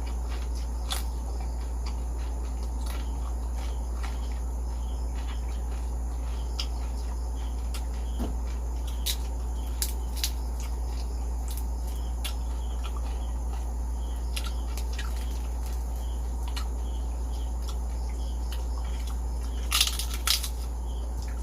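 Chewing and crunching of crispy deep-fried pork skin: scattered short crisp crackles, with two louder crunches close together near the end, over a steady low hum.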